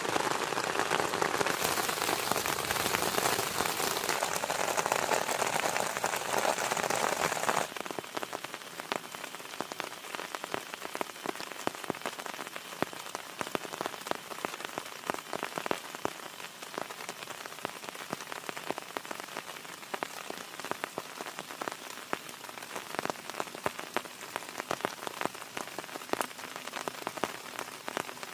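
Heavy rain coming down as a dense, steady hiss; about a quarter of the way in it drops abruptly to quieter rain of many separate pattering drops.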